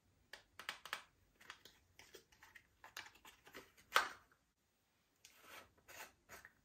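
Slime being squished and pulled by hand, giving irregular sticky crackles and clicks, with one sharper, louder click about four seconds in.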